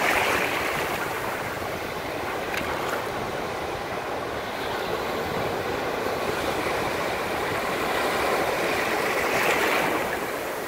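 Ocean surf breaking and washing up a sandy shore: a steady rushing noise that swells a little near the end.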